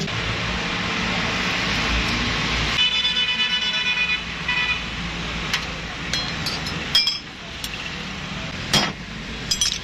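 Passing road traffic, with a vehicle horn tooting in short pulses about three seconds in, then a few sharp knocks.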